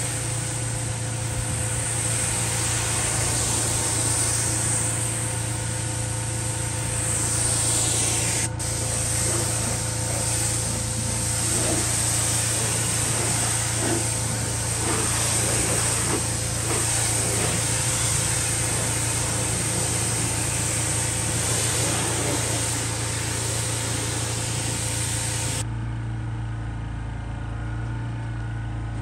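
Pressure washer spraying water onto a car's wheel and bodywork, a loud steady hiss that cuts off suddenly near the end when the trigger is released, over the steady low hum of the washer's motor.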